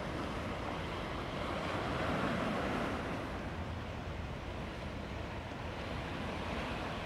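Steady wind and sea noise: wind on the microphone over the wash of water, with a low rumble and no distinct events.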